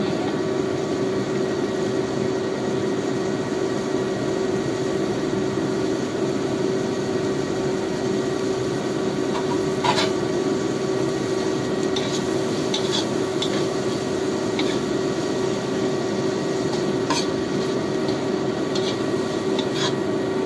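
Metal spatula stirring and scraping prawns in soy sauce around a wok, with a few sharp clinks of the spatula against the pan now and then, over a steady hiss and hum.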